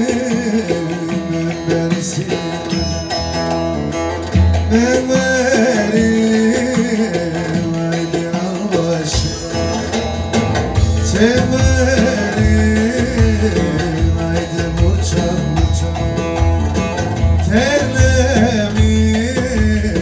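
Live Turkish folk dance music in the Ankara oyun havası style: bağlama lutes and an electronic keyboard playing with a voice singing and a steady beat.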